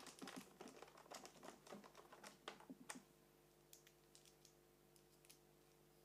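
Faint small clicks and taps of screws and a small screwdriver being handled against a laptop's plastic base cover, thinning out about three seconds in and leaving only a faint steady hum.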